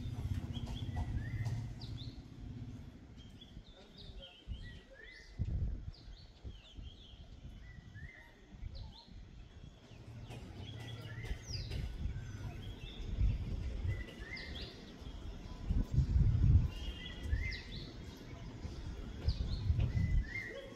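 Several birds calling with short, repeated chirps and quick whistles. Low rumbling gusts of wind on the microphone come and go, loudest about three-quarters of the way through.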